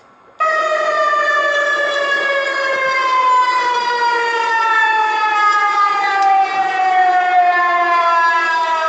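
Public warning siren sounding one long, loud tone that slowly falls in pitch, starting about half a second in.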